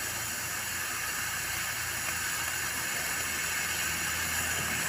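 Freezer's hermetic compressor running with a low hum while air hisses steadily out of the cut-open refrigerant line.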